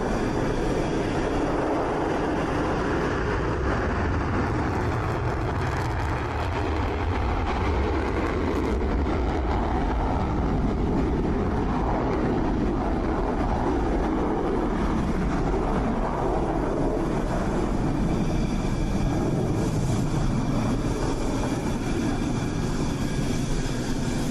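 Rafale fighter jets' engines running, a steady loud noise with a faint high whine.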